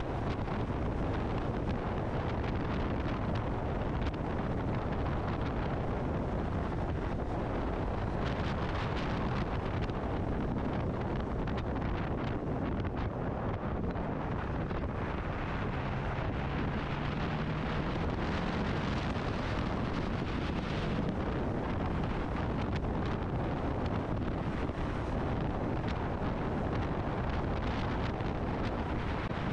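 Motorcycle being ridden: steady wind noise on the microphone, with engine and road noise beneath it.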